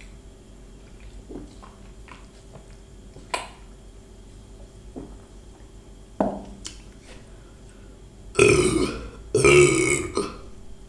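A woman burping loudly twice, about a second apart, near the end, from gulps of carbonated Thums Up cola; a few faint clicks come before.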